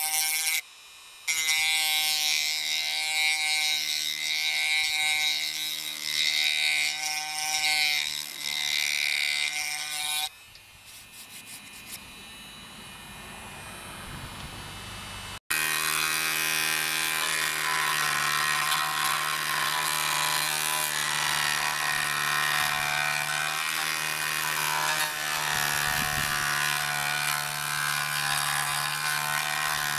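Dremel rotary tool with a sanding drum running at high speed and sanding cured epoxy filler on a wooden window sash: a steady motor whine with a rough sanding scrape. It breaks off for a moment about a second in and goes quiet from about ten to fifteen seconds in, then runs steadily again.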